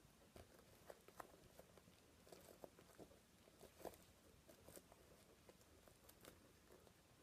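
Near silence with faint, irregular clicks and soft crackles of hands handling soft foam squishies and a cupcake mould.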